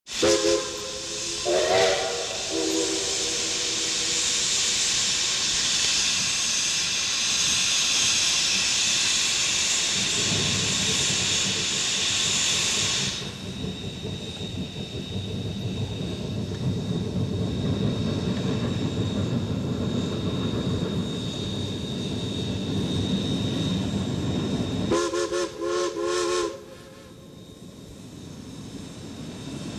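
Steam whistles of three geared steam locomotives sound several chords at the start over a loud hiss of venting steam, which lasts about thirteen seconds. The hiss gives way to the heavy low exhaust of the locomotives working. Near the end the whistles give about four short toots together, and then the sound drops away.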